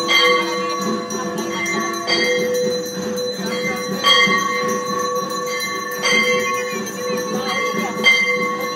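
Puja bells ringing, with a fresh strike about every two seconds, each ringing on into the next.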